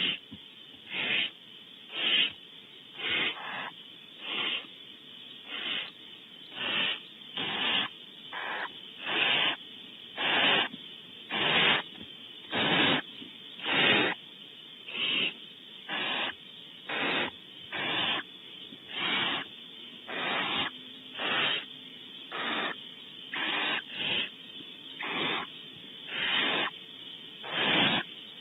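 Barn owl owlets in the nest box giving their rasping, hiss-like begging calls, one about every second. Each call is a short breathy burst without a clear pitch.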